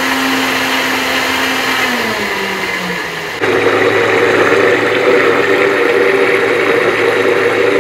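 Silver Crest heavy-duty blender motor running steadily, whirling thick cake batter in its jar. Its hum steps down in pitch around two seconds in, then about three and a half seconds in it grows louder with a deeper hum.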